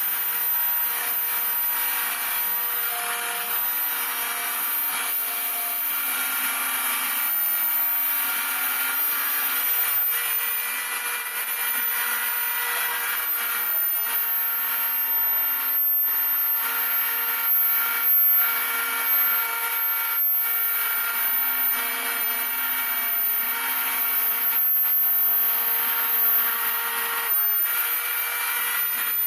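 Home-built CNC router milling model-aircraft wing ribs: the spindle runs with a steady high whine over the hiss of the cutter working the material, the tone wavering slightly as the machine moves along the cut.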